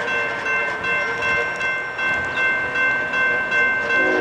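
Railroad grade-crossing warning bell ringing steadily, about two strokes a second, as the crossing gates come down for an approaching train.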